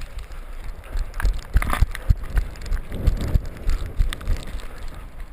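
Rain and wind noise on a GoPro action camera's microphone, with irregular knocks and low thumps from the camera and gear being jostled as the wearer moves.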